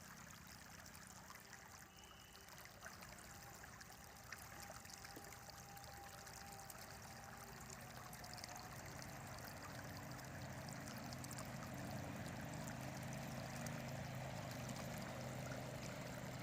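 A river flowing steadily, a continuous rush of running water that grows gradually louder.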